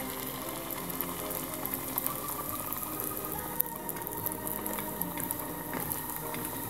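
Snack pieces deep-frying in hot oil in a stainless steel saucepan: steady sizzling and bubbling with fine crackles. Soft background music plays underneath, and there is one sharp click about three and a half seconds in.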